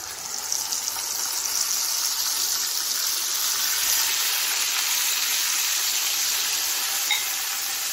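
Yogurt-marinated chicken sizzling as it goes into hot oil with crackling cumin seeds and a bay leaf, a steady hiss of frying that swells over the first couple of seconds and then holds.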